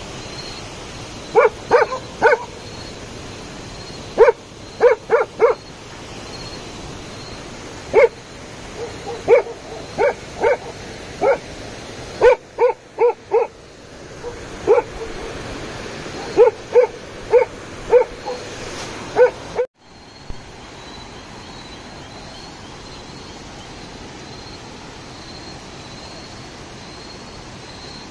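Bhotia (Himalayan sheepdog) dogs alarm-barking at a leopard near the fence, in quick runs of two to four barks. The barking stops abruptly about two-thirds of the way through and gives way to a steady hiss.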